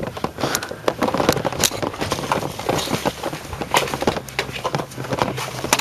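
Footsteps on a gravel and paved garden path, an irregular run of crunches, clicks and knocks.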